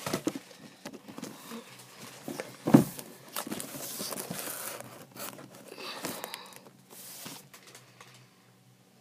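Handling noise as a handheld camera and a carded toy in a plastic window package are moved about: irregular rustling and rubbing with scattered knocks, the loudest about three seconds in, dying down near the end.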